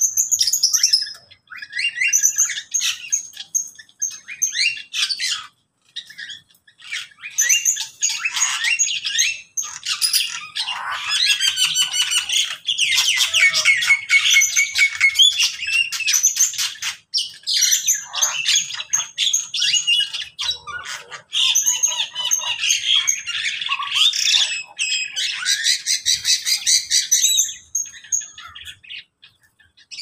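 A mixed aviary of cockatiels, lovebirds, mynas and other small cage birds calling all at once: overlapping chirps, trills, whistles and squawks. There are brief lulls about five seconds in and again in the middle, and the calling thins near the end.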